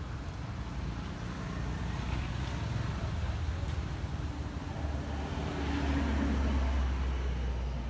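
Low rumble of a motor vehicle's engine, growing louder over the second half.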